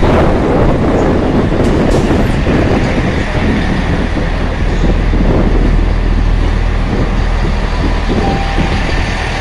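Transport for Wales passenger train running past along the platform close by, a loud, steady rumble of wheels on track and running gear that eases slightly near the end.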